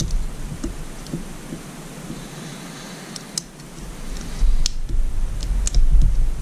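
Scattered small metallic clicks and ticks as pliers work at an old piston ring stuck in its groove on a Mercury Thunderbolt 500 outboard piston, with dull handling thumps in the second half.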